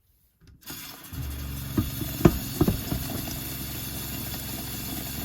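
Kitchen tap running water into a pot of popcorn, with a steady hum beneath it. It starts abruptly under a second in. A few clunks of the pot come about two seconds in.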